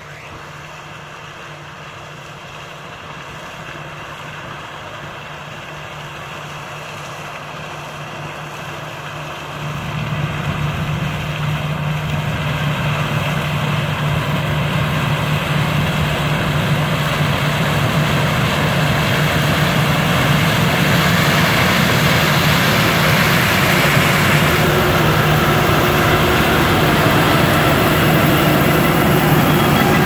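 Claas combine harvester with a Geringhoff corn header running while it harvests corn. Its engine and threshing machinery make a steady drone that grows louder as it approaches, with a step up about ten seconds in.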